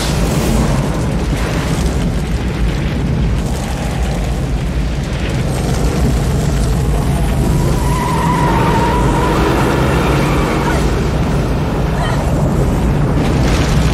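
Film sound effects of a fiery explosion's aftermath: a loud, continuous deep rumble of fire and storm wind with heavy low end, and a brief wavering high tone about eight seconds in.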